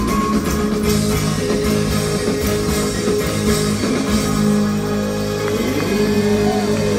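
Live rock band playing through a theatre PA, with held chords over bass and drums. A tambourine is shaken in the first second, and a high tone glides down near the end.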